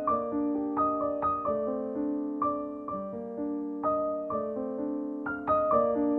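Background piano music: a slow melody of struck notes, about two a second, each ringing on under the next.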